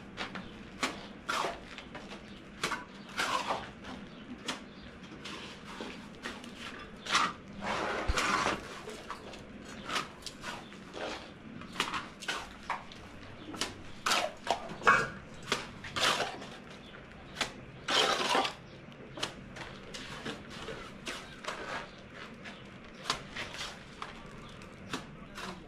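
Hand-tool work on cement and masonry: irregular taps and knocks, about one or two a second, with two longer scraping strokes, one about a third of the way through and one about two thirds through.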